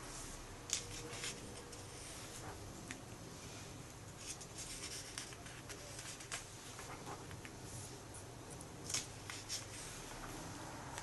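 Pages of a comic book being turned by hand: scattered crisp paper rustles and flicks, the sharpest just under a second in and about nine seconds in, over a faint steady hum.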